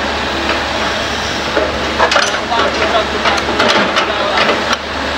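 Hitachi hydraulic excavator's engine running steadily while its bucket digs into an earth bank. From about a second and a half in until near the end, soil and stones crackle, knock and crunch as the bucket scrapes them loose and fills.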